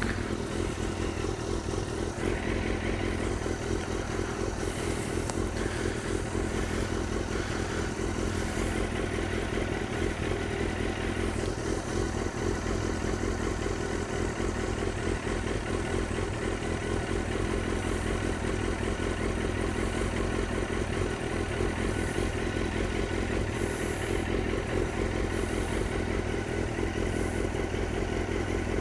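Suzuki GSX-R 1000 sportbike's inline-four engine idling steadily.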